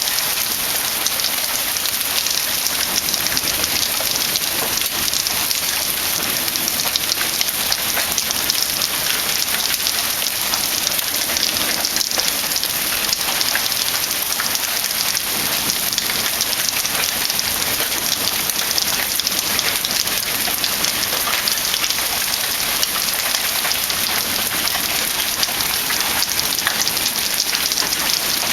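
Heavy rain falling steadily, a dense even patter of countless drops hitting a surface.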